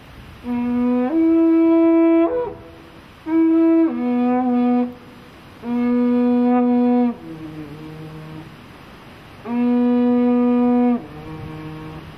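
A handmade carnyx, the Celtic war trumpet, blown in four loud held blasts. The first two blasts step between a lower and a higher note, the last two hold one note, and softer, lower notes follow the third and fourth.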